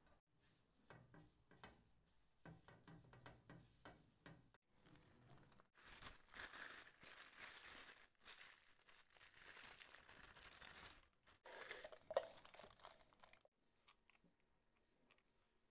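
Plastic piping bag crinkling and rustling as it is handled and opened out over a cup, after a few light clicks at the start, with one sharper snap near the end.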